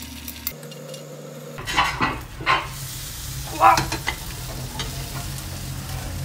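Beaten egg sizzling in butter in a non-stick frying pan, with a metal spatula scraping against the pan several times, the loudest strokes about two and four seconds in.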